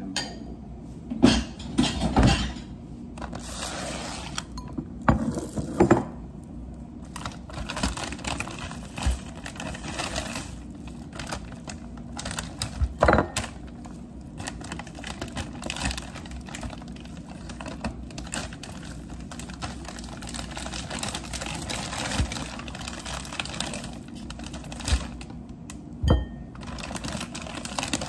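Kitchen food-prep handling: a knife and dishes clinking and knocking on a stone counter, a few sharper knocks scattered through, with the rustle of a plastic grocery bag between them.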